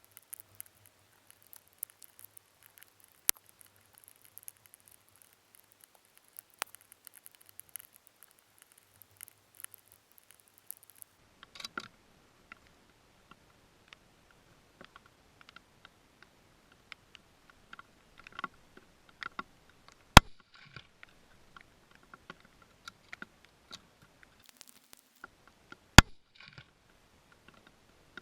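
Scattered small clicks and taps of handling, with two sharp, very brief loud cracks about six seconds apart near the end.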